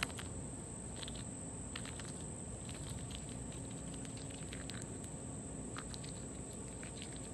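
Chipmunk gnawing a hazelnut held in its forepaws: faint, scattered small crunching clicks over a steady low hiss.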